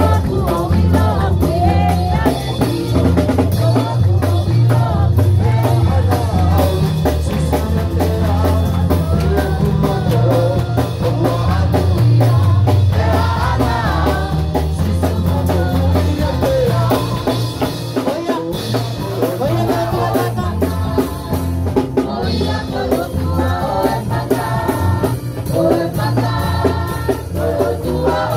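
Women singing a worship song into microphones, backed by a live band with a drum kit and guitar, loud and amplified.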